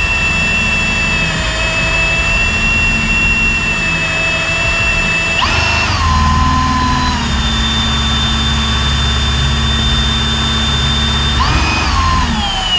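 Oil extractor pump running steadily with a whine while drawing engine oil out through the dipstick tube; its pitch rises and falls back twice, about five and about eleven seconds in.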